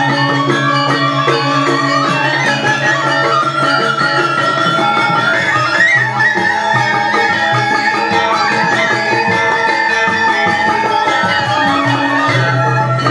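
Live Balinese gamelan playing dance accompaniment: fast, dense strokes from the metal percussion over a steady low held tone, with a sustained melody line wavering above.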